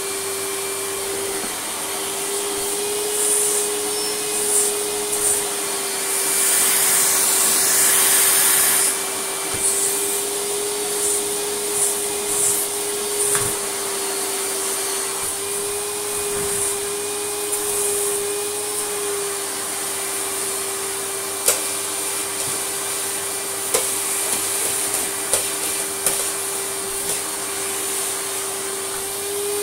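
Goblin Aquavac 620 canister vacuum, fitted with a Vax New Wave 1100 motor, vacuuming a rug: a steady motor whine over a rush of air. The rush swells for a couple of seconds about six seconds in, and a few light knocks come in the second half.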